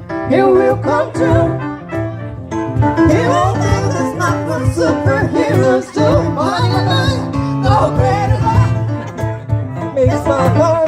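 Live gospel music: voices singing wordless gliding runs over instrumental backing with a steady bass line.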